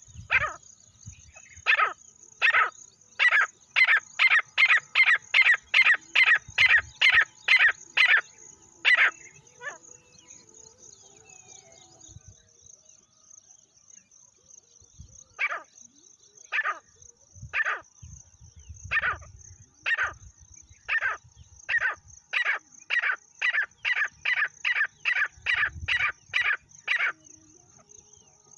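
Francolin call: two series of loud, short, harsh notes, each starting slowly and speeding up to about three a second. The first series stops about nine seconds in, and the second starts around fifteen seconds and ends shortly before the end.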